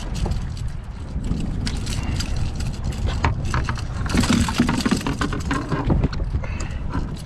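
Wind buffeting the microphone over water sloshing around a kayak at sea, with scattered clicks and a louder hissing rush about four seconds in.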